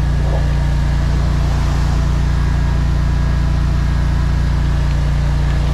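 High-pressure drain jetter's engine running steadily while the jetter hose works in the stormwater pipe.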